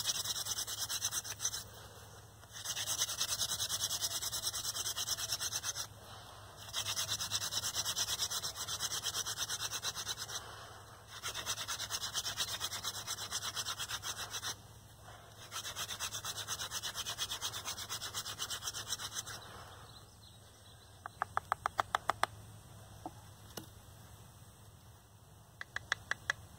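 Hand-drill friction fire: a wooden spindle spun back and forth between the palms grinds into a wooden fireboard with a scratchy, fast-ticking rub, in five bouts of a few seconds each with short pauses between, building heat toward an ember. After the drilling stops come two quick runs of sharp taps, the first about two seconds later and the second near the end.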